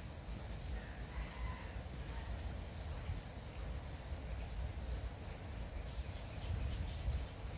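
Light, steady rain falling, with faint scattered bird calls; a short birdcall stands out about a second in.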